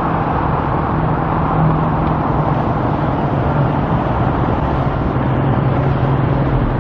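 Steady road traffic noise: a continuous wash of passing vehicles with a low, even hum underneath.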